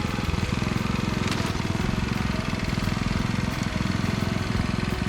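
Small engine of a walk-behind rice binder running steadily.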